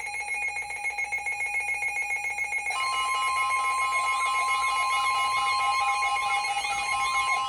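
Electronic Emergency Alert System warning tones. A rapidly pulsing pair of tones sounds first; about 2.7 s in, a steady high tone joins in, together with a warbling siren-like tone that rises and falls about twice a second.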